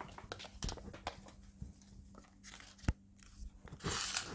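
Handling noise of a thick blue hook-up cable being pulled and threaded through a mains connector: rustling and scraping with light knocks. There is a sharp click about three seconds in and a louder burst of rustling near the end.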